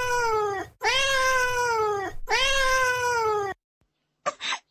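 Cartoon crying sound effect: three long high wails in a row, each sliding slightly down in pitch, then two short coughs near the end.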